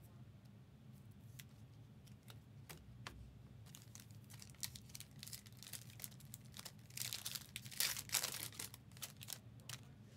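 A Panini Prizm WWE hobby trading card pack being torn open, with the wrapper crinkling and scattered small clicks and rustles. The loudest stretch of tearing and crinkling comes about seven to eight and a half seconds in.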